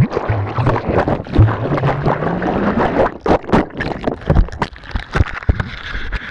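Water rushing and sloshing around an underwater camera, with many knocks and bumps as the camera is moved. A low hum slowly rises in pitch over the first three seconds.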